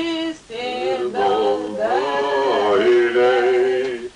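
Several voices singing without instruments, in short phrases with brief breaks, overlapping through the middle.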